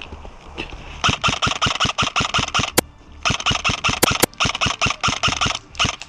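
An airsoft gun firing on full auto in two long strings of rapid, evenly spaced shots, about seven a second, with a short break near the middle.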